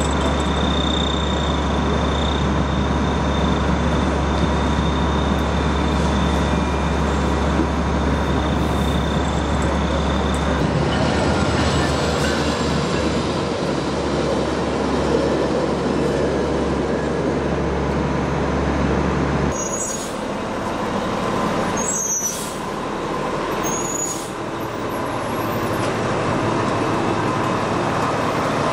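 Diesel engines of airport crash fire trucks running with a steady low rumble. About two-thirds of the way through, the deep part of the rumble drops away, and there are a few sudden breaks after that.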